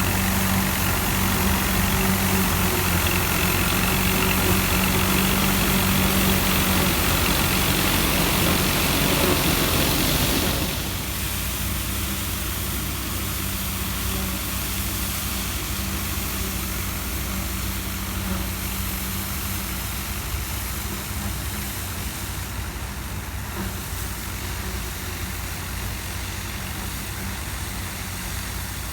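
Combine harvester running steadily with the clatter of its threshing and cutting parts over the engine's low hum. About ten seconds in the clatter drops away and the engine carries on more quietly.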